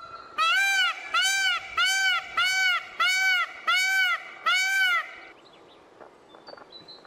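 Indian peafowl (peacock) calling: a run of loud, honking calls about two a second, each rising then falling in pitch, which stop about five seconds in.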